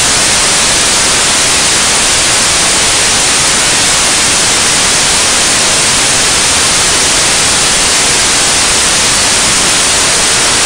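Loud, steady static hiss, an even white-noise rush with no pauses and no other sound heard through it.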